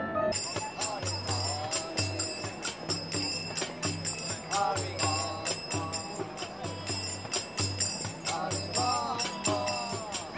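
Live music with rapid jingling percussion over a pulsing bass line and a wavering melody.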